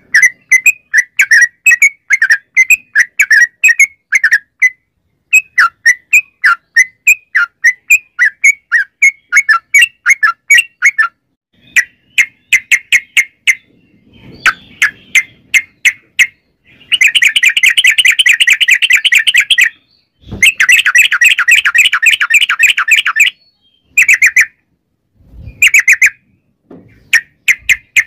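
Caged yellow-vented bulbul singing loudly: quick runs of short chirping notes broken by brief pauses, with two longer, faster trills in the second half.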